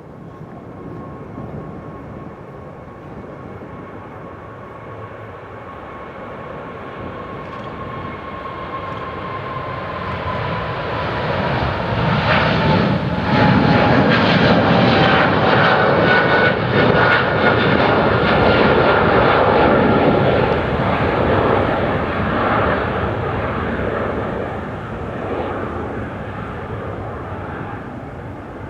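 Boeing 777 freighter's twin GE90 turbofans at takeoff power as the jet passes by: the roar builds, peaks about halfway through and fades. A high fan whine slides down in pitch as the aircraft passes.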